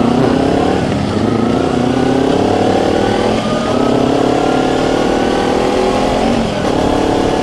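Motorcycle engine accelerating away, heard from the rider's seat: the pitch climbs, drops at an upshift about three and a half seconds in, climbs again, and drops at a second upshift near the end.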